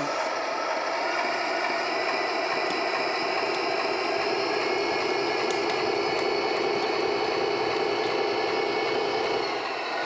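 Electronic sound module of a 3D-printed RC bulldozer playing a simulated diesel engine through its small speaker, running steadily, with the electric gear motors driving the tracks as the model moves forward.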